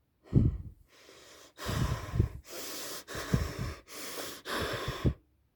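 A person breathing heavily and fast: about seven quick, noisy breaths in a row.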